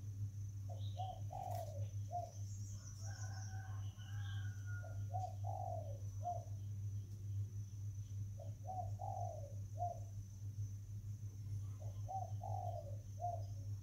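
A dove cooing: a short phrase of four or five coos, repeated four times about every three to four seconds. A few brief chirps from another bird come a few seconds in, over a steady low hum.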